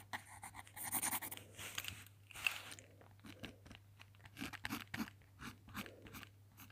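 Pencil scratching on sketchbook paper in quick, irregular strokes while a figure's legs are drawn in.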